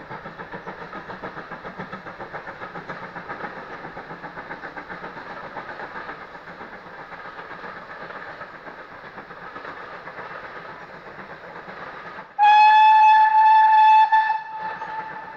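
Heritage steam train passing, its running making a fast, even rhythmic beat of about four pulses a second. About twelve seconds in it sounds its whistle: one loud, steady note held for about two seconds, then trailing off more quietly.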